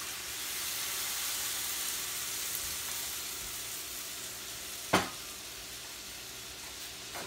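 Shrimp frying in stainless steel skillets on a gas stove: a steady sizzling hiss. A single sharp knock about five seconds in is the loudest moment, with a fainter one near the end.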